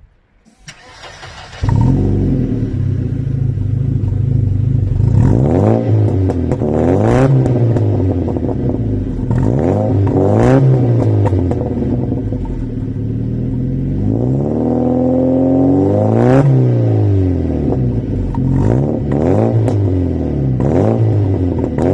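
Mercedes-Benz W124 2.0-litre 136 hp four-cylinder petrol engine cranked and catching about a second and a half in, then idling and revved in repeated short blips, with one longer, slower rev past the middle.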